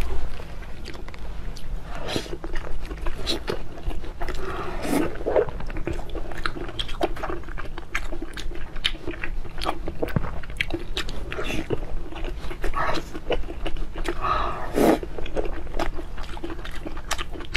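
Close-miked eating: a person chewing and biting food, with many wet mouth clicks and smacks, and two longer, louder wet mouthfuls about five seconds in and again near fifteen seconds.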